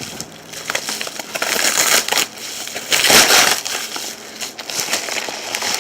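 Shipping packaging being torn open and crumpled by hand: irregular crackling rustles, loudest in a burst about three seconds in.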